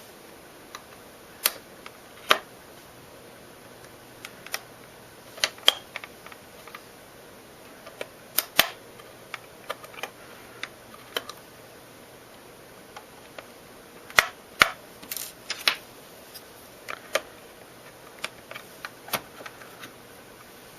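Irregular sharp plastic clicks and snaps, some in quick pairs and clusters, from a Buffalo LinkStation LS-XHL NAS's plastic case being handled and pried open, its latch tabs popping loose.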